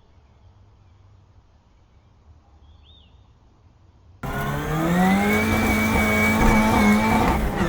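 1987 Ford Sierra RS Cosworth Group A race car's turbocharged four-cylinder engine, loud at high revs. It cuts in suddenly about four seconds in, climbs in pitch, holds steady and then stops abruptly. Before it comes in there is only faint outdoor background with a couple of short bird chirps.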